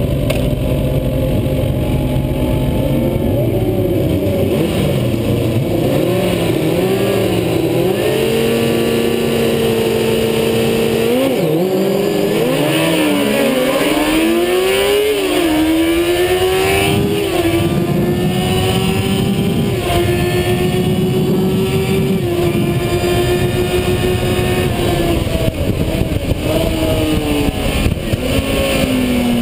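Racing motorcycle engine running hard, heard from an onboard camera, its pitch climbing and stepping with gear changes. About eleven seconds in the revs drop, then rise steadily again through several shifts.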